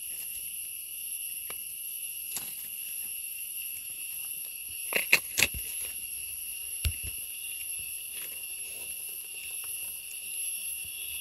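A steady high-pitched insect drone from the forest, several even tones held without a break. A few sharp clicks about five seconds in and once more near seven seconds.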